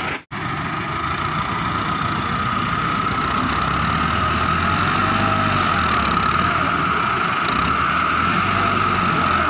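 Massey Ferguson 375 tractor's diesel engine running steadily as its front loader bucket is driven into a sand pile. The sound cuts out for a moment right at the start.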